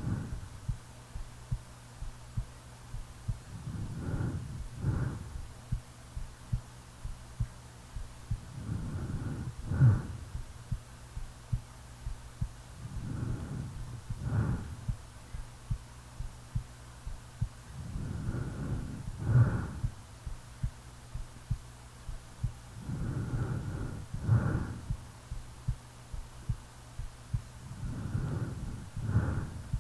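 A sleeping person's heartbeat, an even pulse of soft thumps a bit faster than one a second, under slow snoring breaths that come about every five seconds, each swelling to a sharper peak.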